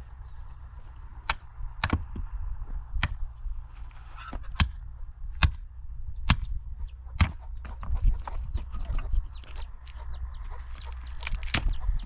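A hatchet chopping firewood: sharp chops into wood about a second apart, pausing for a few seconds before one last chop near the end. Chickens call in the background, mostly short, high chirps in the second half.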